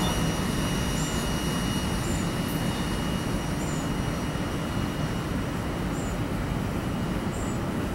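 Freight train of coal and covered hopper cars rolling away, a steady rumble that fades slowly as the last cars leave. A thin steady high tone runs with it and stops near the end.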